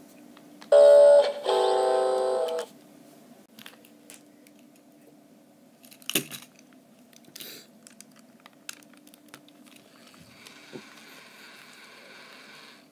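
Hasbro i-Cat robotic cat toy sounding two electronic tones from its speaker, the second longer and a little lower, followed later by faint clicks and a soft mechanical whir as its head moves.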